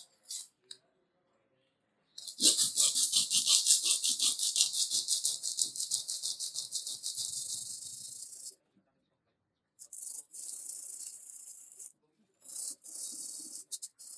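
Sandpaper rubbed quickly back and forth over a painted wooden saw handle, about five strokes a second, stripping off the old paint. A long spell of sanding starts about two seconds in, followed by two shorter ones after brief pauses.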